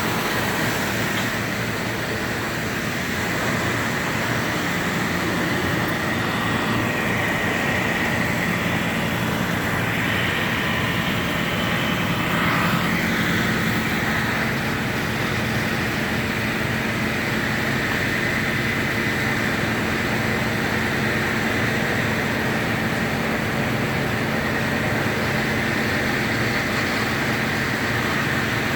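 Heavy demolition machinery running steadily: a constant engine drone with a steady high whine over it.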